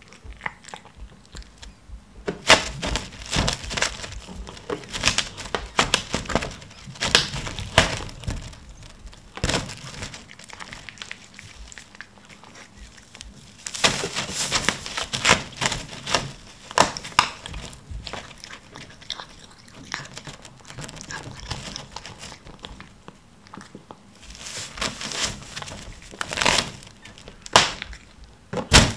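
Clear plastic film crinkling and crackling as a cat pushes its head through it and claws at it. The noise comes in irregular spells, with quieter gaps around eleven and twenty seconds in.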